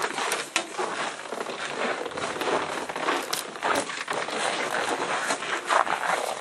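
Irregular footsteps with crunching and rustling, as people walk and carry the camera and a pitcher.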